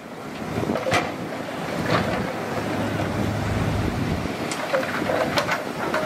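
Diesel engines of heavy earthmoving machinery running, a rough rumble that swells deeper around the middle, with a few short sharp knocks and wind noise on the microphone.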